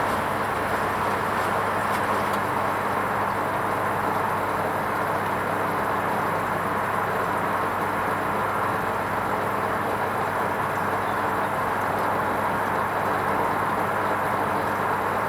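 Hoover Vision HVP16 washing machine running its wool rinse programme: a steady, even noise with a low hum underneath, no change in pace or level.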